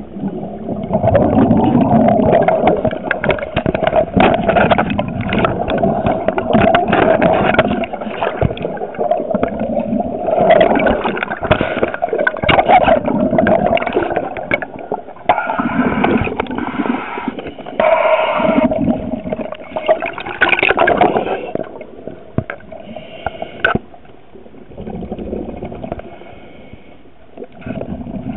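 Scuba regulator breathing underwater: long bubbling bursts of exhaled air several seconds at a time, alternating with quieter spells.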